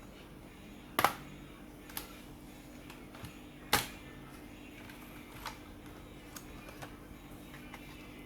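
Scattered sharp clicks and taps from a laptop being taken apart by hand, with screws, tools and plastic case parts being handled. Two louder knocks come about a second in and just under four seconds in, with fainter ticks between, over a steady low hum.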